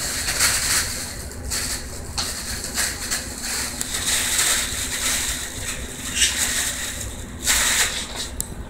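Kittens scrambling in and around a fabric cat play tunnel, its nylon rustling and crackling in repeated bursts, loudest a little before the end.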